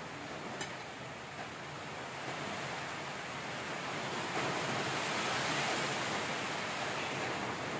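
A steady rushing noise that swells over a few seconds in the middle and then eases slightly, with a light clink of a fork on a plate about half a second in.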